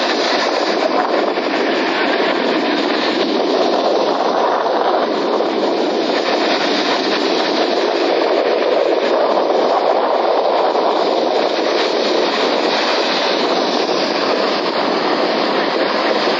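Sea water making a loud, steady rushing noise that holds an even level without distinct breaks or swells.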